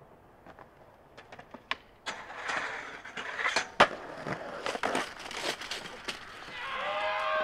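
Skateboard rolling on concrete with a run of clacks and knocks from the board and trucks hitting the ground, the loudest a sharp crack about four seconds in. Near the end a drawn-out, wavering pitched cry comes in.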